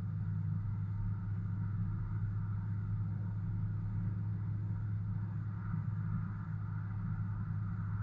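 Steady low rumble of a vehicle driving on a snow-covered road, heard from inside the cabin: engine and road noise.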